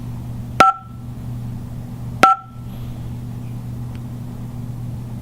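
Two short electronic key-press beeps from a 2GIG Go!Control alarm panel's touchscreen, about a second and a half apart, over a steady low hum.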